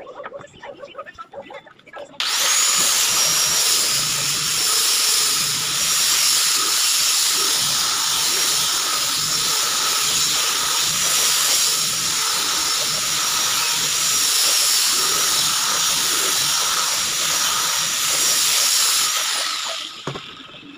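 Handheld electric sander with a round sanding pad, sanding the face of a wooden raised-panel cabinet door. It starts suddenly about two seconds in with a quick rising whine and runs steadily with a high whine and the hiss of the pad on the wood. It winds down a second or so before the end.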